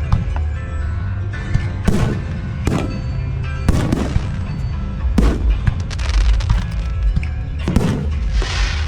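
Aerial firework shells bursting one after another: sharp booms every second or so over a constant deep rumble, with crackling bursts near the end. Music plays underneath.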